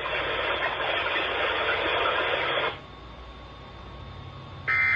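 Weather radio receiver hiss, cut off sharply about two and a half seconds in, leaving a faint hiss with a low hum. Near the end, a short buzzy data burst begins: the first of the EAS end-of-message tone bursts that close the weekly test.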